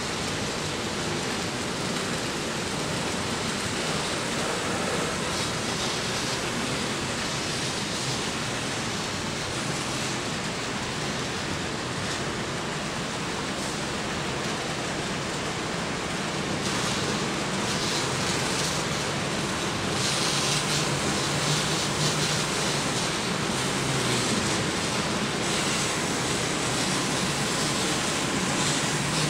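Steady hiss-like running noise on a model railroad layout. It grows a little louder with a low rumble from about twenty seconds in as a model train approaches along the track.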